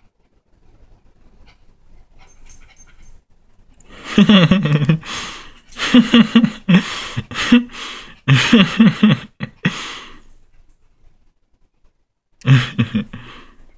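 Small terrier-type dog panting hard in quick rhythmic runs of breaths while humping a blanket. The breathing comes in several loud spells from about four seconds in, and once more briefly near the end.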